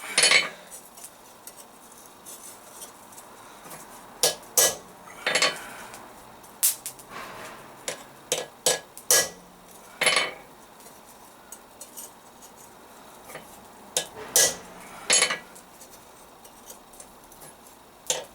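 Hammer blows on a chisel cutting veins into a hot forged leaf: sharp metallic strikes at irregular intervals, some in quick pairs, each with a brief ring, with longer pauses as the chisel is repositioned.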